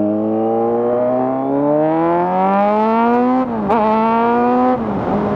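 Kawasaki Z900's inline-four engine through an SC Project full-system exhaust with the catalytic converter removed, pulling hard under acceleration: the note climbs steadily for about three seconds, drops sharply at an upshift with a quick blip, then rises a little and drops again near the end.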